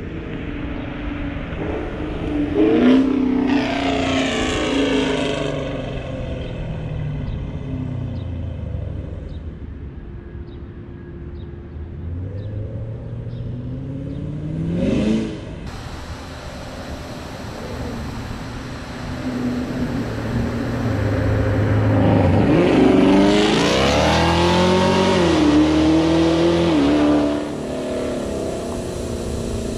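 2019 Camaro SS's 6.2-litre V8, breathing through long-tube headers with all its catalytic converters deleted, run at full throttle past the roadside. Its loud exhaust note rises with the revs and drops as the car goes by. There is one pass about three seconds in, a short rising pull near the middle that cuts off, and a longer, louder pull in the second half that also stops suddenly.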